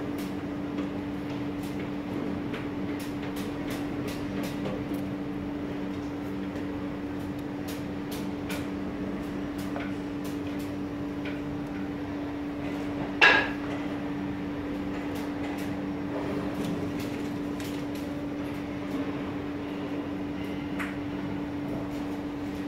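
Metal test probe clicking against the copper segments of a motor commutator during a segment-to-segment insulation test, with light clicks scattered throughout and one sharper metallic clink about halfway through. A steady low hum runs underneath.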